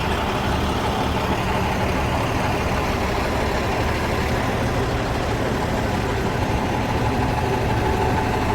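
A motor vehicle's engine idling steadily, a continuous low hum.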